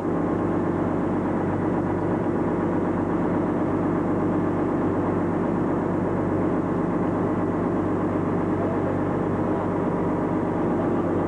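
Engines of a Fountain 38 sportfishing boat running steadily, an even hum that holds one pitch throughout.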